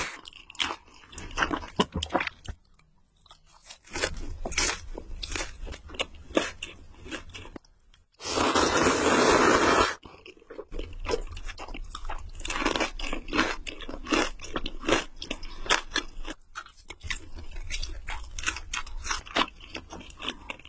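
Close-miked crunchy chewing and biting: many sharp crunches in quick succession. About eight seconds in, a loud rushing noise lasting about two seconds covers everything.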